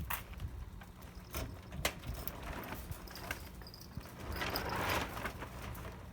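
Trunk lid of a Nissan March Cabriolet being worked on its new gas-spring struts: a few light clicks and knocks, then a brief rushing noise that swells and fades about four to five seconds in.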